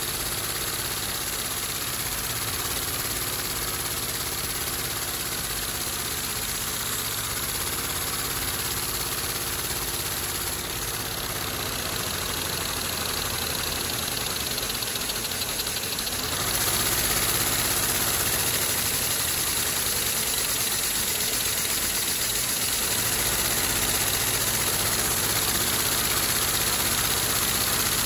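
Inline three-cylinder Lego vacuum engine running, its plastic parts clattering over a steady rush of air. About sixteen seconds in it gets louder and stays so.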